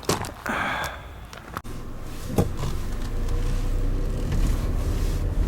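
A person getting into a car: a thud about one and a half seconds in, then the car's engine starting and running with a steady low rumble.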